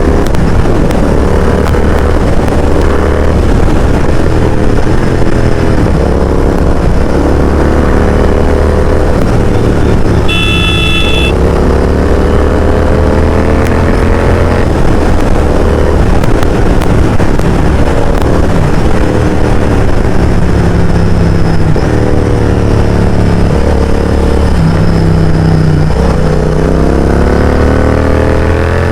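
Royal Enfield Continental GT 650's 648 cc parallel-twin engine through a loud Mototorque aftermarket exhaust, revving up through the gears and easing off again and again while riding. A horn sounds briefly about ten seconds in.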